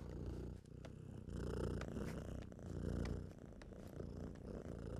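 A cat purring continuously, the purr swelling and easing about every second and a half.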